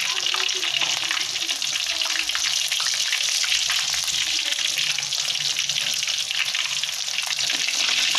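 Chicken pieces deep-frying in hot oil in a wok, nearly done: a dense, steady crackle and sizzle of fine pops, with a ladle turning the pieces through the oil.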